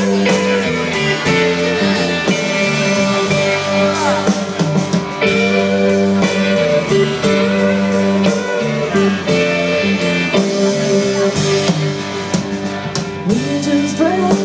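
Live band playing: electric guitars over drums, with long held notes and bending melodic lines.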